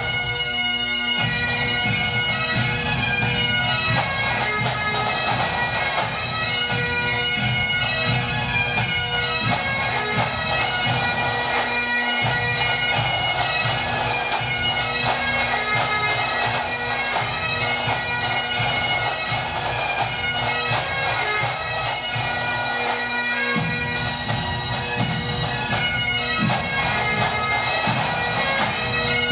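Pipe band of Great Highland bagpipes and drums playing a 6/8 march. Steady drones sound under the chanter melody, and the drums beat underneath.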